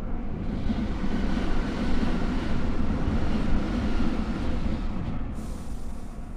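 Keihan 2200 series electric train running between stations, heard from inside the car: a steady rumble of wheels on rail and running gear with faint humming tones, swelling over the first couple of seconds. The high hiss cuts out briefly a little after five seconds.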